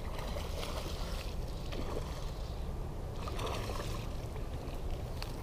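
Wind buffeting the microphone in a steady low rumble, with faint, intermittent splashing of water as a hooked bass is brought in to the bank.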